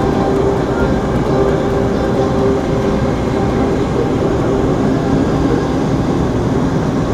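Indoor skydiving wind tunnel's airflow rushing steadily and loudly, heard from inside the flight chamber with the wind blowing over the microphone.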